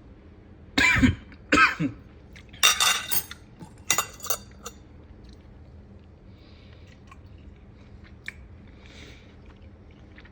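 A person eating jerk chicken. A few loud, short mouth and eating sounds come in the first few seconds, then faint chewing.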